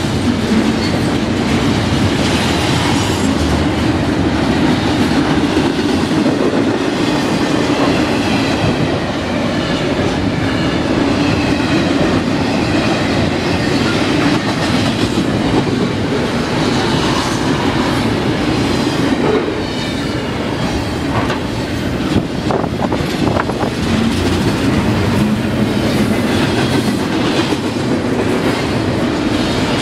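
CSX double-stack container train's well cars rolling past at close range: a loud, steady rumble of wheels on rail, with a few sharp clanks about two-thirds of the way through.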